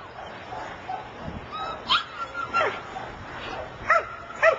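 Young dog giving short, high-pitched yelping barks, four in all, each dropping in pitch, two close together near the end.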